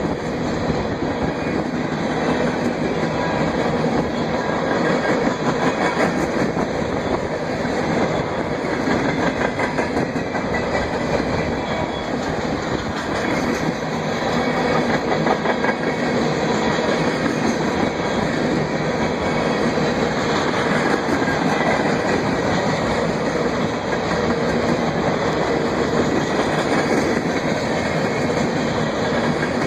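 Freight train of ethanol tank cars rolling past, a steady rush of steel wheels on rail with a constant run of clicks as they cross the rail joints.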